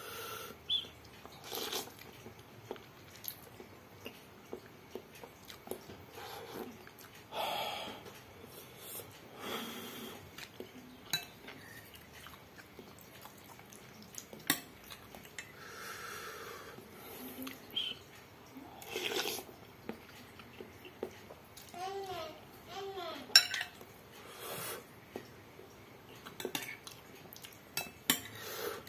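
A metal spoon clinks and scrapes against a glass bowl of instant noodle soup, with bouts of slurping and chewing of noodles and broth. The clicks and slurps come at irregular intervals.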